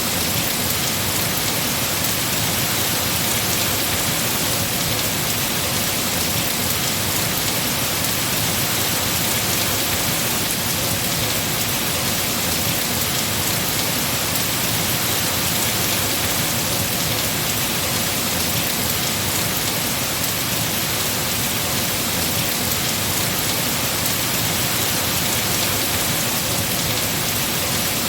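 Heavy, steady rain falling on trees and foliage.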